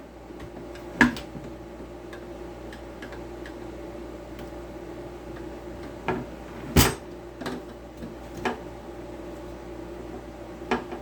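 Scattered clicks and knocks from handling a circular saw and a screwdriver while a small screw on the laser guide's battery cover is being undone, over a steady low hum. One sharper knock comes about seven seconds in.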